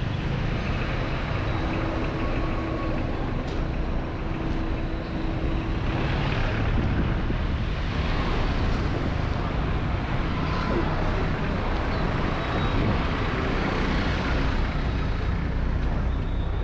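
Busy city street traffic: cars and motor scooters running and passing close by, a steady rumble.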